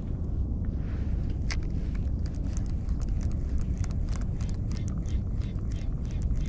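Spinning reel being cranked during a lure retrieve, ticking lightly about four times a second from about two seconds in, over a steady low rumble.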